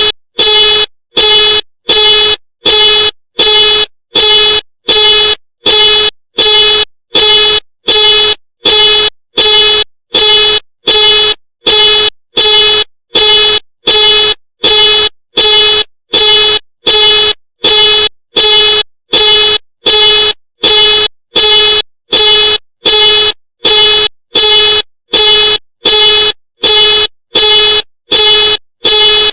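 Ford car alarm sounding the car's horn in a steady on-off pattern: loud, identical honks of one pitch, about two a second, with short silent gaps between them.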